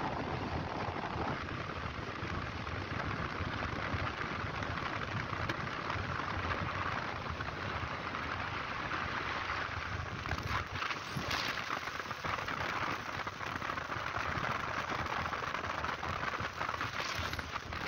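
Steady rush of wind and road noise from a motorcycle ridden at speed on a paved road.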